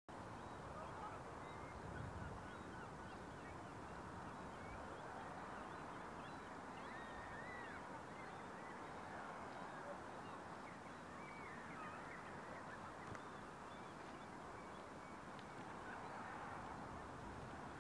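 Many birds calling over a steady background hiss: lots of faint, short, rising and falling notes overlapping throughout.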